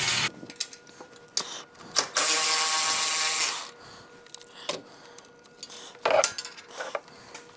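A power tool runs for about a second and a half, with scattered clicks and clanks of tools and metal parts before and after.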